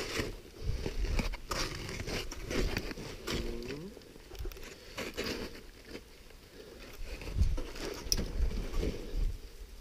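Irregular scuffing, scraping and rustling from a climber scrambling over snowy granite: hands and boots scraping rock and snow, with clothing and gear brushing close to the microphone and a few sharp clicks. A brief murmur of a voice comes about three and a half seconds in.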